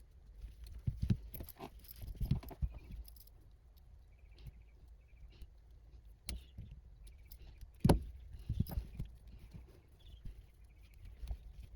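Cable ties and plastic side covers being handled and fitted onto a small FPV quadcopter frame: scattered clicks, taps and light rattles, the loudest a sharp click about eight seconds in.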